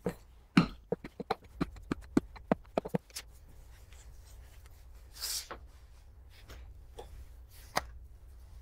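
Rolling pin worked back and forth over tortilla dough on a wooden board: a quick run of light knocks, about three or four a second, for the first three seconds. A short scrape follows about five seconds in, and a single click near the end.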